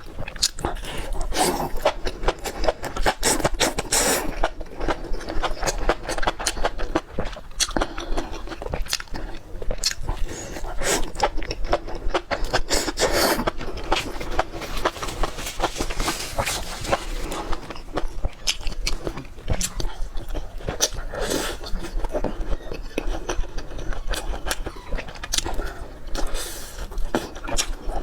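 Close-miked eating: chewing and biting, a dense run of irregular wet clicks and smacks.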